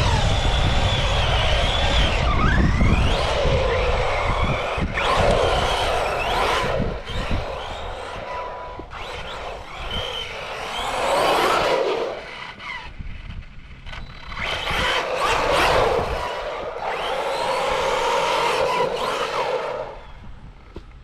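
Arrma Big Rock 3S BLX RC truck's brushless motor whining up and down with tyre noise on pavement as the truck makes several full-throttle speed passes, about five surges with lulls between. Wind buffets the microphone with a low rumble in the first few seconds.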